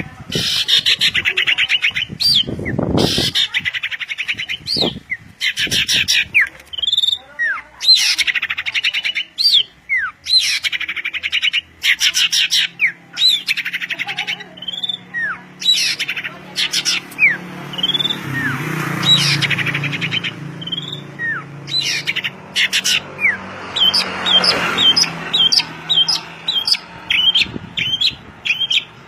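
Songbird singing loudly: fast, rattling chirp trills broken by short, sharp whistled notes that swoop in pitch. A faint low hum runs underneath through the middle part.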